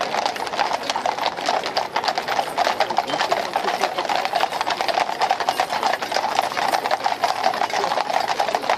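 Shod hooves of a troop of cavalry horses clip-clopping on a tarmac road, many horses at once making a dense, unbroken clatter.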